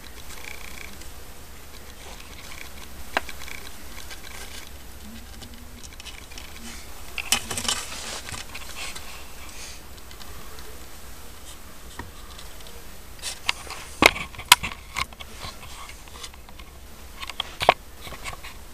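Siamese kittens' claws scrabbling and tapping on a plywood box edge: scattered scratches and sharp clicks, a short scuffle about halfway through and the sharpest taps a little later, over a steady low hum.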